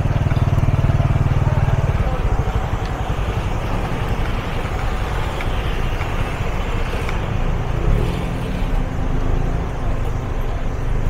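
A motor vehicle's engine running close by, a strong low hum for about the first two seconds, then giving way to a steady engine and road rumble.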